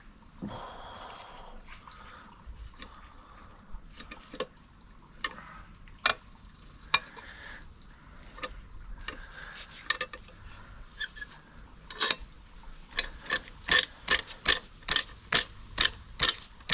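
Sharp clicks from a hand tool being worked on the lower leg of a Torqeedo electric outboard while a stainless steel guard is fitted. They come now and then at first, then speed up to about three a second over the last few seconds.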